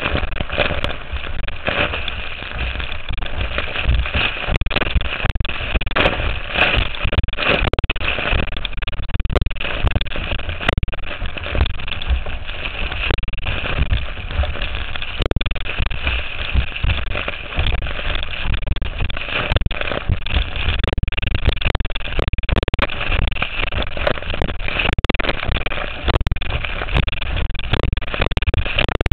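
Powered watercraft running at speed over open water: a steady engine and water noise, with wind and spray buffeting the camera and many short knocks throughout.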